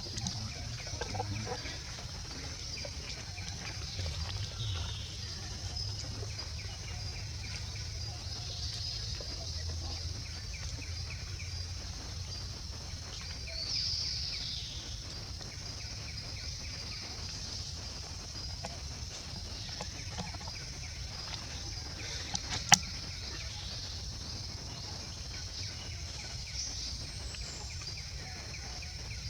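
Outdoor country ambience: a steady high-pitched hum under a low rumble, a few bird calls, and one sharp click about 23 seconds in.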